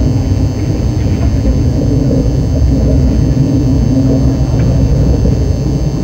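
Steady low rumble of a KTX high-speed train running along the track, heard inside the passenger cabin.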